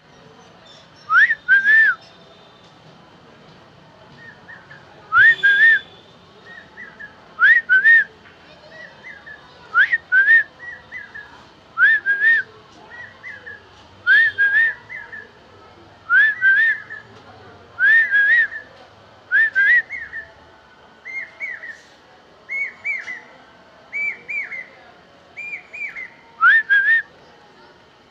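Clear whistled notes that rise in pitch, mostly in quick pairs, repeated about every two seconds, with softer single rising whistles in between.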